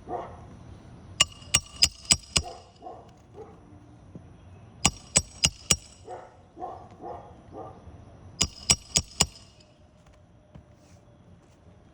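Hammer blows with a metallic ring, in three quick bursts of four or five strikes each, while working on roof shingles. A dog barks in short calls between the bursts.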